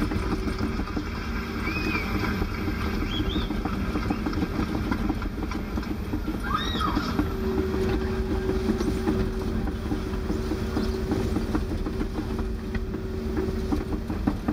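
Excavator's diesel engine running steadily, heard from inside the cab, while the machine tracks over dirt with its steel tracks clattering continuously.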